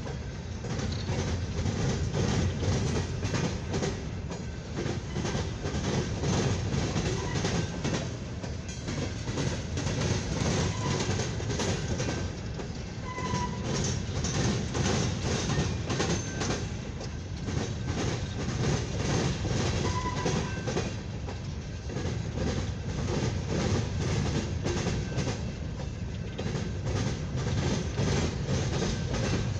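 Long freight train of empty steel coal hopper cars rolling past, a steady rumble with the rapid clickety-clack of wheels crossing rail joints.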